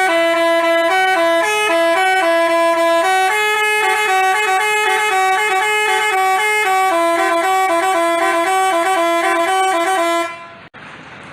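Basuri telolet musical bus horn playing a quick tune of short stepping notes, cutting off about ten seconds in.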